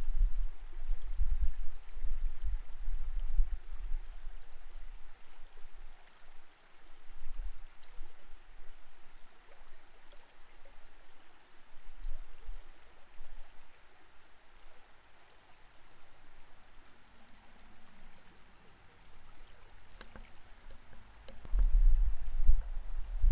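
Creek water heard through an underwater camera housing: a muffled, steady wash of flowing water. It is broken by deep, low surges as coho salmon swim close past the camera, strongest near the start and again near the end.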